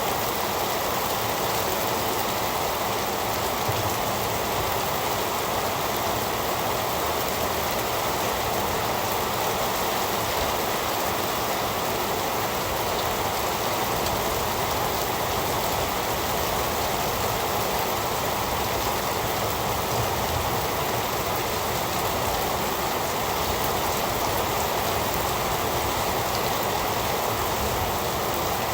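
Heavy rain falling steadily, a dense even hiss with no thunder or single loud drops standing out.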